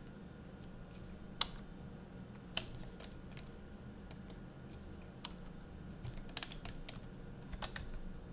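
Scattered keystrokes and clicks on a computer keyboard, irregular and bunched into quick runs about six and seven and a half seconds in, over a low steady hum.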